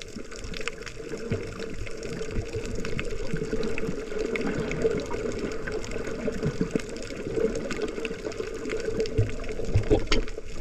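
Water churning and bubbling around the camera while snorkeling, a steady rough rush scattered with small clicks and knocks, getting somewhat louder toward the end.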